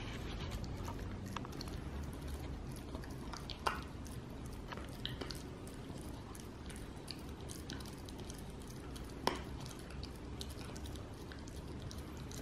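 A West Highland White Terrier chewing a vegan pig's ear treat: irregular clicks and crunches of teeth on the chew, with two louder bites about four and nine seconds in.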